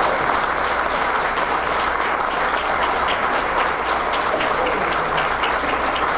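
Audience applauding, many hands clapping at once in a steady, sustained round.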